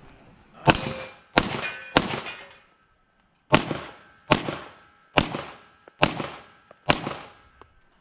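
Eight pistol shots from a compensated CZ Czechmate 9mm competition pistol, each with a short echoing tail. Three come in quick succession, then after a pause five more follow at a steady pace of a little under one a second.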